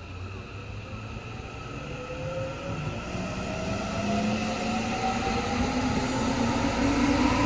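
Electric commuter train pulling out of a station: its traction motors give a whine that rises steadily in pitch as it accelerates, growing louder, over the rumble of the cars.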